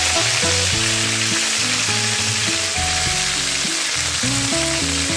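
Broccoli florets frying in hot mustard oil in a kadai: a steady sizzling hiss, with background music of held notes underneath.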